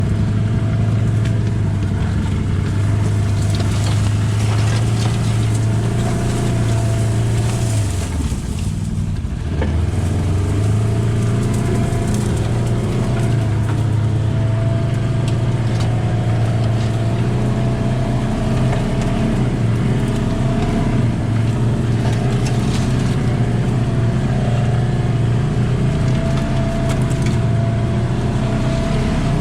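Side-by-side UTV engine running steadily under throttle. It eases off briefly about eight seconds in, then picks back up to a steady pull.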